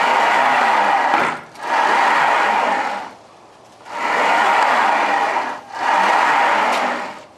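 Linear ball-bearing blocks rolling along steel guide rods as a wooden CNC gantry is pushed back and forth by hand: four strokes of a grinding rumble, each lasting a little over a second.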